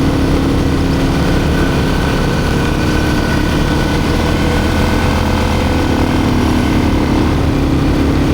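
ATV engine running steadily, its note shifting slightly about six seconds in.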